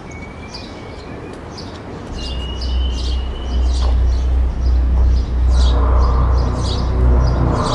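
Birds chirping, with two thin whistled notes early on. About two seconds in, a deep low rumble comes in and grows louder, becoming the loudest sound.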